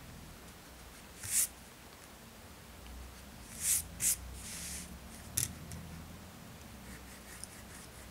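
A few short, scratchy rubs of a pencil and a rubber eraser on paper. Most of them are bunched together a little before halfway.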